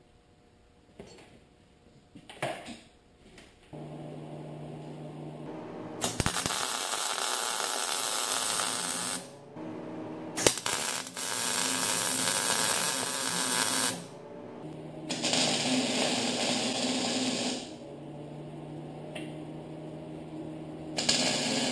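Electric arc welding on steel tubing: four runs of arc noise a few seconds each, starting about 6, 10, 15 and 21 seconds in, over a steady machine hum that begins about 4 seconds in. Faint knocks and rustles come before the welding.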